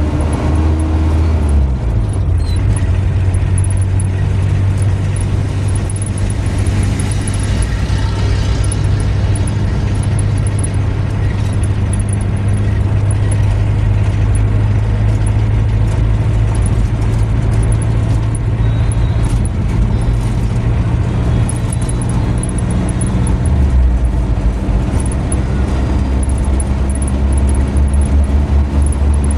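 A car's engine runs at driving speed, with tyre and road noise, heard from inside the car. The low engine hum shifts in pitch about a second and a half in and again near the end.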